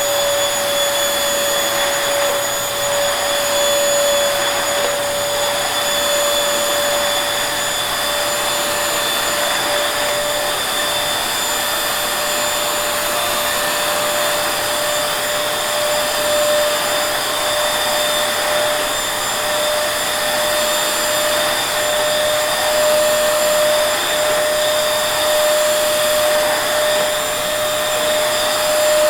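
Vacuum cleaner running steadily without a break: a constant rush of air under a high motor whine.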